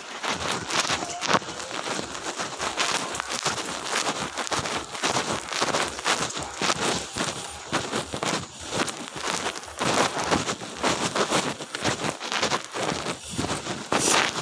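Footsteps in slippers on wet pavement in the rain, an irregular run of wet slaps and splashes.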